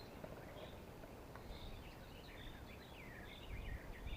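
Small songbirds chirping and warbling faintly in the background, with a quick twittering run in the middle. A low rumble comes up near the end.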